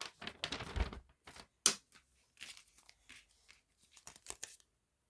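Irregular crinkling and rustling, with one sharp click about a second and a half in.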